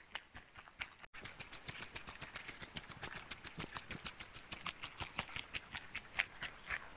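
A hiker's footsteps on a woodland trail: a dense run of small, irregular crunching ticks, with a split-second dropout about a second in.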